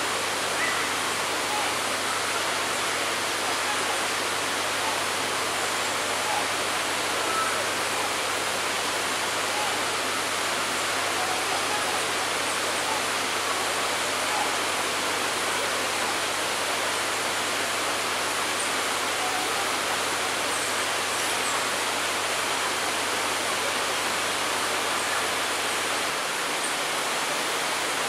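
Steady rushing of flowing water, an even noise that does not change, with a faint low hum under it that stops near the end.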